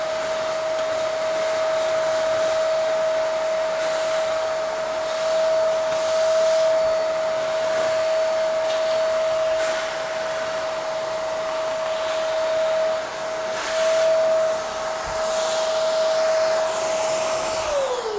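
Hoover Max Life Pro Pet Swivel upright vacuum running with its crevice tool, a steady motor whine over rushing air that swells a few times as dirt is sucked out of a door track. Near the end it is switched off and the whine falls away as the motor spins down.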